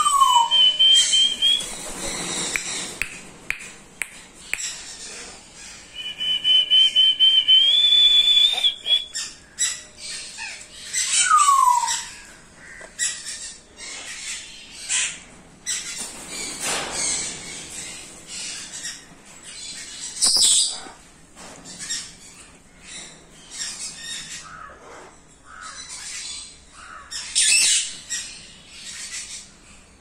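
Cockatoos calling: falling whistles, long steady whistled notes, and several harsh screeches later on, with scattered small clicks.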